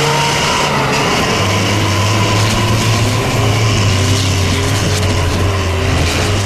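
Pickup truck's diesel engine, straight-piped through twin vertical exhaust stacks, running hard under heavy throttle as it drives through mud and snow. It is a loud, steady, deep drone that drops a little in pitch about a second in.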